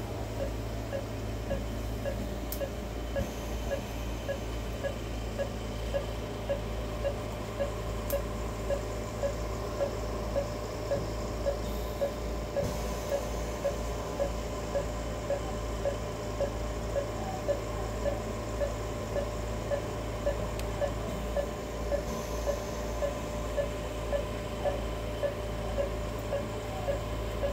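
Surgical patient monitor beeping in a steady rhythm with the anaesthetised dog's heartbeat, short beeps of one unchanging pitch at roughly two a second, over a low steady hum.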